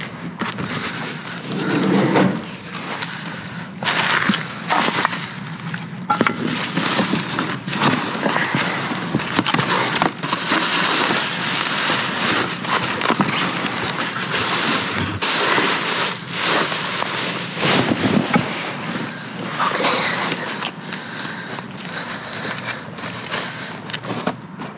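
Trash being rummaged through: continuous rustling and crackling with scattered knocks and clatters of loose debris.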